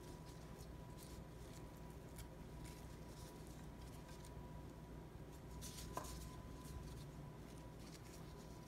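Faint rustles and light taps of gloved hands laying sliced bell peppers into a glass baking dish, with one slightly sharper tap about six seconds in, over a low steady hum.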